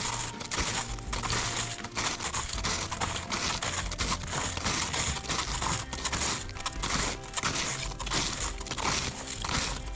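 Snowshoe footsteps crunching and compressing snow in a steady walking rhythm, roughly two steps a second.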